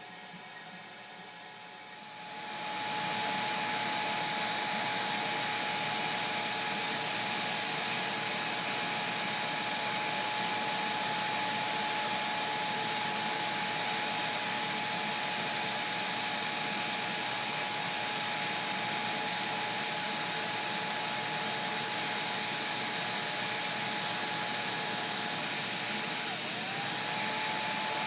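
Electric heat gun switched on about two seconds in and blowing steadily, a loud rush of air with a steady motor whine, heating a sheet of plastic to soften it for thermoforming. Near the end the whine dips briefly and comes back up.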